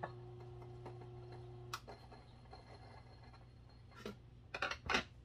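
Faint low hum that cuts off with a click about two seconds in, followed by a few light knocks and clinks of things handled on a kitchen counter.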